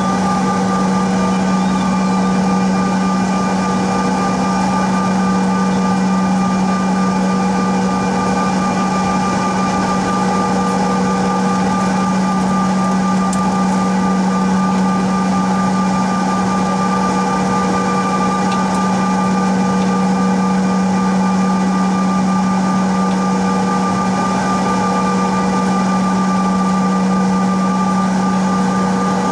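Cabin noise inside a Bombardier CRJ900 regional jet taxiing: its rear-mounted GE CF34 turbofans running steadily at low taxi power, a constant low hum with several steady whining tones above it.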